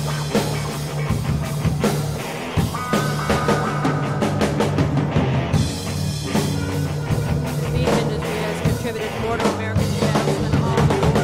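Instrumental rock music with a busy drum kit and bass, with no voice.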